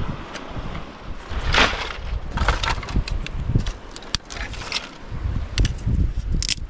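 A bundle of dry driftwood sticks clattering and knocking together as it is carried and set down on shell and coral gravel, with wind rumbling on the microphone.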